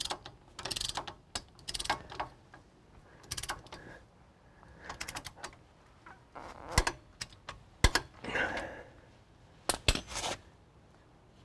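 Irregular metallic clicks, rattles and clunks of hand work on steering parts, with a few sharp knocks from about seven seconds in.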